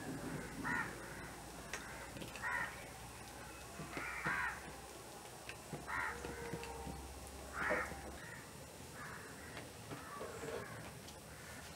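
Crows cawing: about six short, harsh caws spaced every one and a half to two seconds, the last one fainter.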